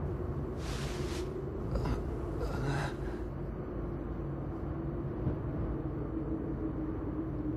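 Sombre background score: a low held drone over a rumble, with three short breathy swishes in the first three seconds.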